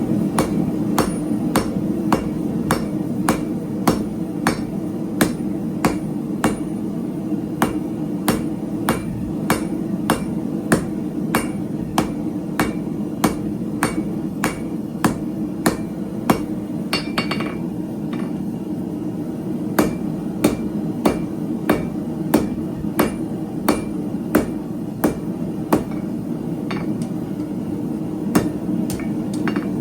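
Hand hammer striking hot 3/8-inch square steel stock on an anvil in a steady rhythm of about two blows a second, with a short break about eighteen seconds in. A steady low hum runs underneath.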